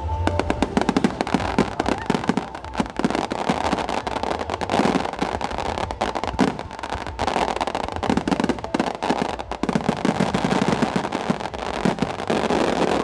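Starmine fireworks barrage: many aerial shells bursting in rapid succession, a dense run of overlapping bangs several to the second.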